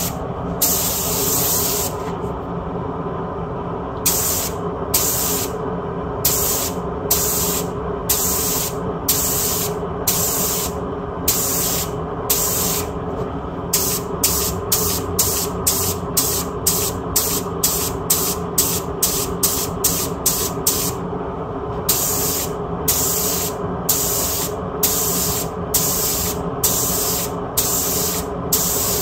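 Aerosol spray can hissing in short repeated bursts, about one a second at first and quickening to about two a second midway, over a steady low hum.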